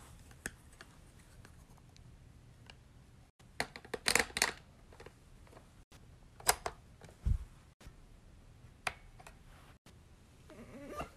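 Sharp clicks and snaps of small objects being handled, loudest in a quick cluster about four seconds in, with a single low thump a few seconds later. A short rising whine near the end.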